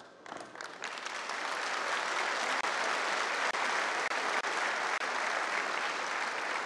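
Boxing crowd applauding at the end of a round, building up over the first second and then holding steady.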